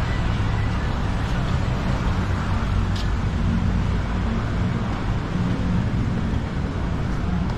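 Road traffic going by steadily, with the low hum of vehicle engines, and one short click about three seconds in.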